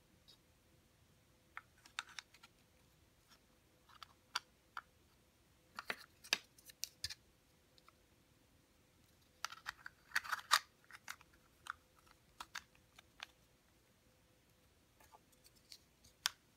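Pieces of a six-piece star puzzle clicking and knocking against each other as they are handled and slid together. The light taps come in scattered clusters, the busiest about ten seconds in.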